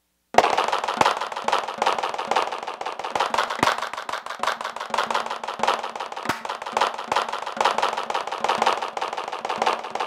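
Fast, dense run of snare-drum strokes and rolls played with sticks and triggered through Sensory Percussion's 'Mutant Trap' electronic drum kit. It starts abruptly just after the opening silence.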